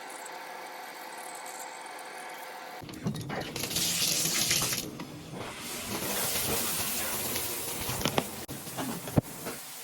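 Water running from a tap, starting about three seconds in after a steady hum, easing briefly and then running again, with a couple of sharp knocks near the end.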